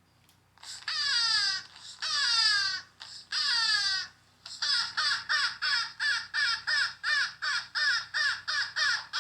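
A bird calling loudly: three long calls that each fall in pitch, then a fast string of short falling calls at about three a second.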